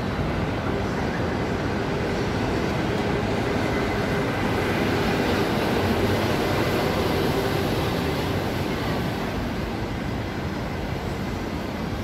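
Steady outdoor rumble of city traffic with a faint hum in it. It swells slowly toward the middle and eases off near the end.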